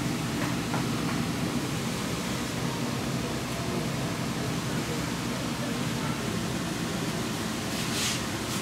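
Steady kitchen background noise: a constant low hum and hiss, with a short scraping sound near the end.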